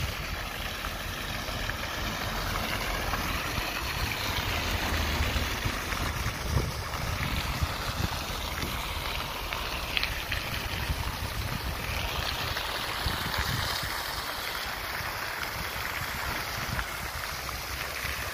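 Fountain jet spraying up and falling back into a pool basin: a steady splashing of water, with wind rumbling on the microphone.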